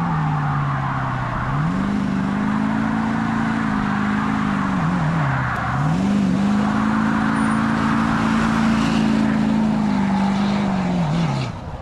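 A motor vehicle engine revving. It runs low for the first second or so, then climbs and holds at high revs, drops briefly about five seconds in, climbs and holds again, and falls off near the end.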